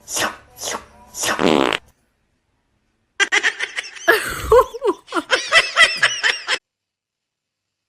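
Three short sounds, the last a buzzing note that falls in pitch, then after a short pause a person laughing for about three seconds.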